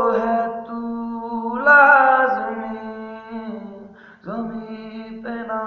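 A man singing unaccompanied, holding long wordless notes of a slow ballad melody; a new note starts about every two seconds and fades away.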